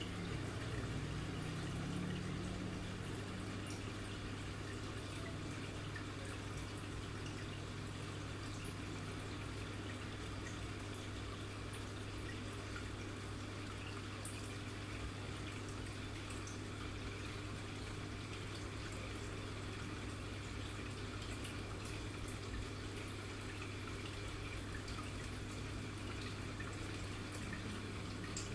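Aquarium water trickling and dripping steadily, with scattered small drips over a constant low electrical hum.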